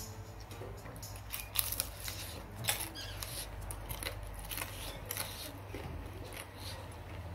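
Eating by hand: a string of short, sharp mouth smacks and chewing clicks as rice is eaten with the fingers from a plate.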